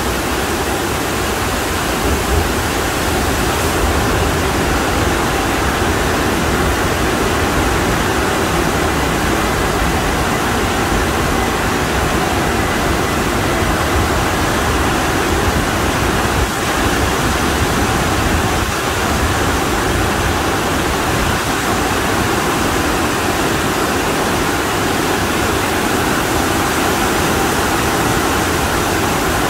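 Torrential monsoon rain pouring down in a loud, steady hiss that does not let up.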